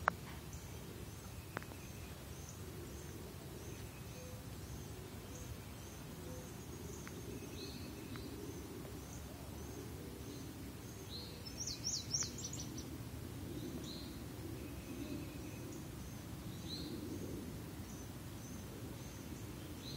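Outdoor ambience with small birds chirping: short high chirps repeating about twice a second, a few lower chirps, and a louder quick run of chirps about twelve seconds in, over a low steady background rumble.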